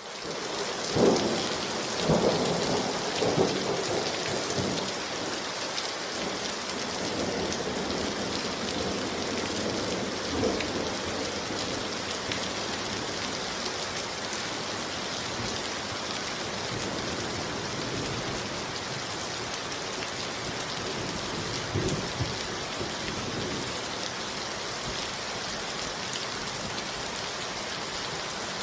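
Steady rain with rolling rumbles of thunder: several close together in the first few seconds, another about ten seconds in, and one more past the twenty-second mark.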